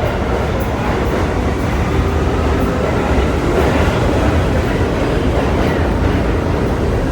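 R32 subway train running on the rails: a steady, loud rumble and rail noise that grows a little louder over the first couple of seconds.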